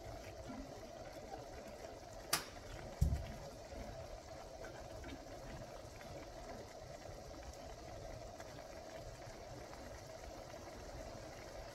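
Steady kitchen background hum, with a sharp click a little over two seconds in and a dull knock just after.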